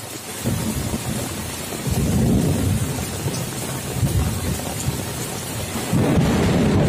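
Heavy rain falling steadily, with rolling thunder that starts rumbling about half a second in, swells louder around two seconds and swells again near the end.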